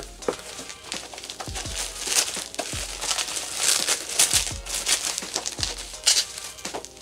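Packaging being crinkled and torn by hand as a mystery box is opened: irregular crackling rustles throughout, over quiet background music.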